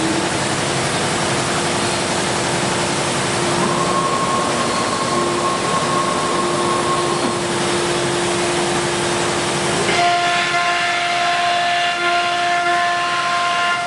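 CNC wood router spindle running at speed: a steady high whine, settling at full pitch just after the start, over a loud even rushing noise. About ten seconds in, the rushing drops and further whining tones join in.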